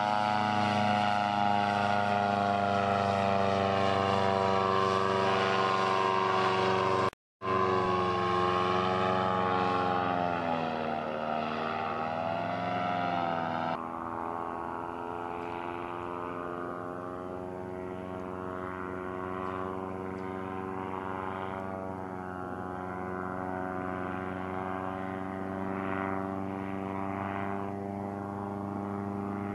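Paramotor engine and propeller droning in flight. It cuts out completely for a split second about seven seconds in, and its pitch dips and wavers around ten to thirteen seconds in. From about fourteen seconds it goes on quieter and duller as the craft flies farther off.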